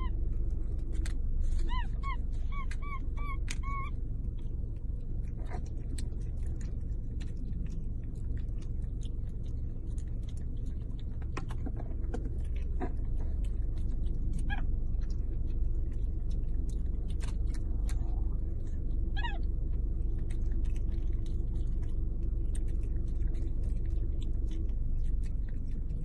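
A small animal making short, high calls: a quick run of five or six about a second in, then a few single calls spaced several seconds apart. A steady low hum runs underneath.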